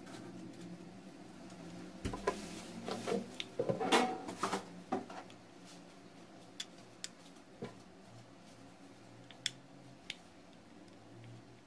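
Small plastic and metal parts of a WMF Perfect pressure cooker handle being handled and fitted together: a spring-loaded slider with its metal plate pushed into the plastic handle body. A quick run of clicks and rattles about two seconds in, then a few separate sharp clicks spaced apart.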